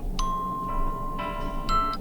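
Infinix Hot 11S NFC alarm tone playing: a chiming melody of bell-like mallet notes. One note is held from just after the start, and more notes join about a second in and again near the end.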